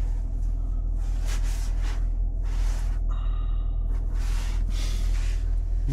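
Steady low rumble of a car idling as it warms up in the cold, heard from inside the cabin, with a few short breaths and a brief tone about three seconds in.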